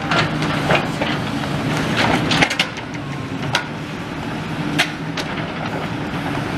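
Demolition machine clearing rubble: irregular cracks and knocks of debris being grabbed and dropped, over the machine's steady engine hum.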